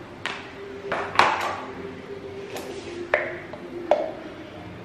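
Metal spoon tapping and clinking against steel kitchen utensils: about seven sharp, irregular taps, one about three seconds in ringing briefly, over a faint steady hum.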